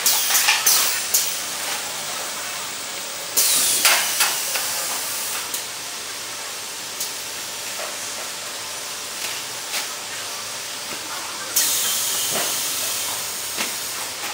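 Automatic mattress packing and compression machine running with a steady hiss, broken by three loud bursts of hissing: one at the start, one about three and a half seconds in, and one near twelve seconds, each fading away. Scattered clicks and knocks sound in between.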